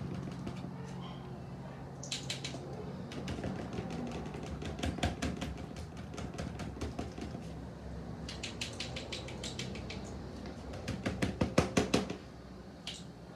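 Homemade slime being squished and worked by hand, giving rapid runs of small wet clicks and pops, loudest near the end. A low steady hum sits underneath at the start.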